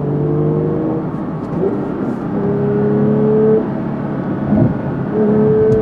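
Porsche 911 GT3's naturally aspirated 4.0-litre flat-six, heard from inside the cabin, pulling under throttle with its pitch slowly rising. It drops back about three and a half seconds in, then picks up again near the end.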